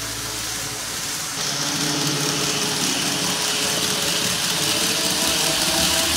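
Steady rolling hiss of N-scale model trains running on the layout's track, their wheels and small motors, getting somewhat louder after about a second; background music fades out about half a second in.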